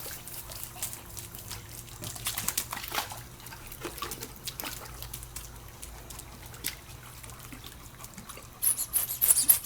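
Pool water splashing and dripping as dogs swim and paddle after a ball, with a louder burst of splashing near the end.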